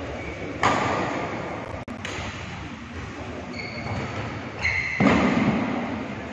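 Badminton rally on an indoor court: two loud, sudden hits, about half a second in and about five seconds in, ring on in the hall, with sharp shuttlecock clicks and short high squeaks of shoes on the court mat between them.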